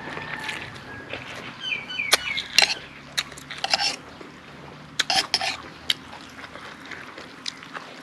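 Spoon and dishes clinking in a run of sharp, irregular clicks during a meal, with wet eating and liquid noises underneath.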